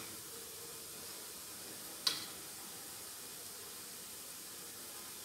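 One light metallic clink of stainless steel tumblers knocking together about two seconds in, over a faint steady hiss.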